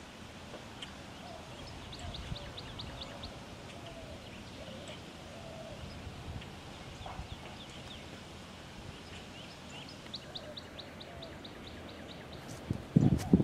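Birds singing: a fast trill of evenly spaced high notes about two seconds in, and again about ten seconds in, over scattered softer chirps. Near the end a loud rush of wind-like noise sets in.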